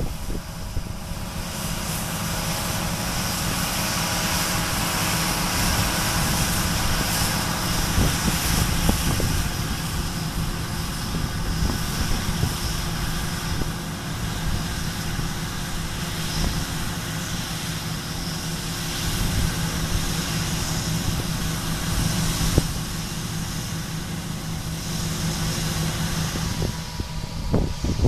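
2013 John Deere combine harvesting wheat, with a tractor pulling a grain cart alongside: a steady engine drone with a hiss over it.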